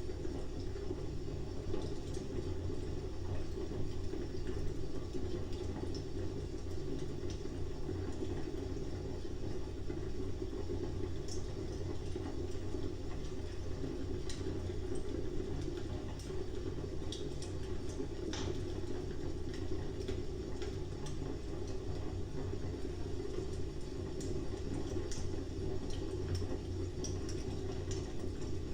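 Fire burning, with scattered sharp crackles and pops over a steady low rumble.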